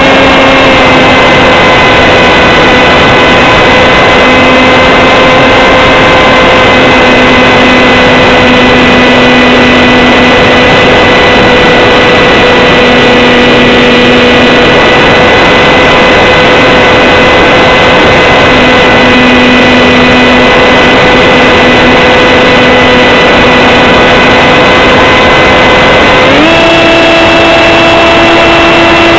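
Electric motor and propeller of a Z84 FPV flying wing running at a steady whine over loud wind rush. The pitch drops slightly about a second in, then rises sharply near the end as the throttle is opened.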